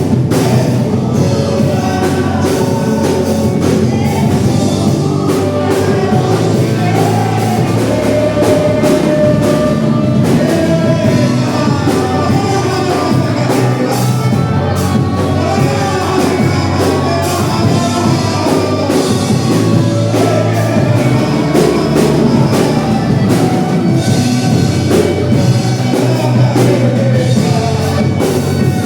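Live worship band playing with singing over drums and amplified instruments.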